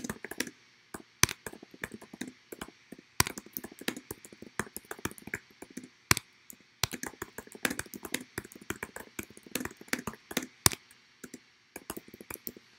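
Typing on a computer keyboard: a run of quick, irregular key clicks with brief pauses, a few keys struck harder than the rest.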